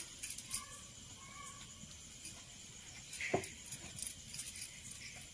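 Faint, scattered light clinks and clicks from hands rolling rice-flour dough into small balls over a stainless-steel plate, with a slightly louder clink about three seconds in.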